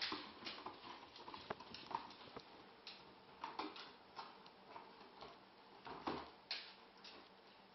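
Chocolate Labrador puppy attacking a cardboard box: faint, irregular scrapes and taps of cardboard and claws, a few a second, with a louder scrape about six seconds in.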